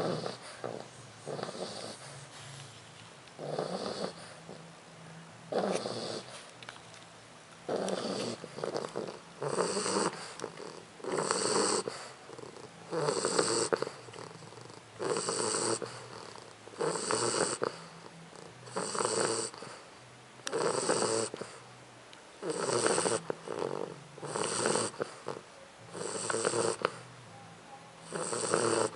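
Four-month-old English bulldog puppy snoring, one snore roughly every two seconds.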